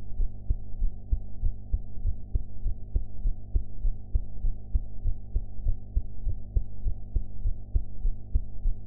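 A young woman's heartbeat after a meal, beating in a steady, even rhythm of short muffled thumps, with a steady low hum underneath.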